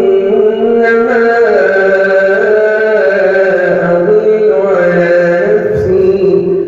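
A man reciting the Quran in the melodic tajwid style, one long held phrase with ornamented turns, the pitch stepping down partway through before a brief break at the end.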